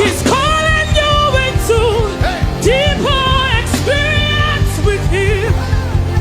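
Live gospel worship song: a solo singer holding and bending notes over a band with bass and drums.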